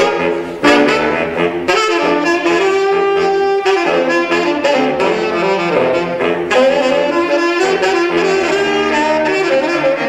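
Saxophone quartet playing jazz live, four saxophones sounding together in harmony with a continually moving line.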